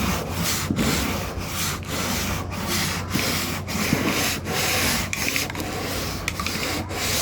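Hand sanding of Bondo body filler on a car's curved wheel well flare with 80-grit sandpaper taped around a spray-paint can: steady back-and-forth scratchy strokes, roughly one or two a second, shaping the filler to match the curve.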